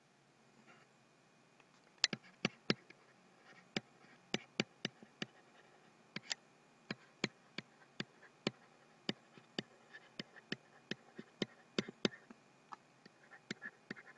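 A stylus clicking and tapping against a tablet surface during handwriting: sharp, irregular clicks, two or three a second, starting about two seconds in.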